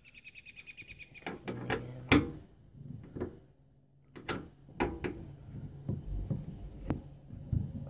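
Hand-handling clicks and knocks of a pickup's tailgate cable and its small fittings, a series of separate taps with the loudest a little over two seconds in. It opens with a brief high, rapid rattle and runs over a faint steady low hum.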